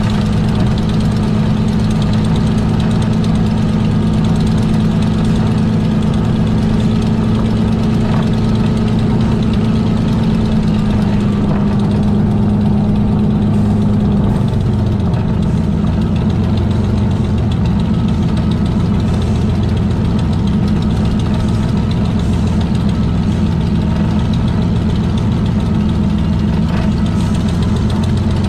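Rolls-Royce Merlin V12 engine of a two-seat Spitfire T9 running at low power as the aircraft taxis, heard from the cockpit: a steady low drone that drops slightly in pitch about halfway through.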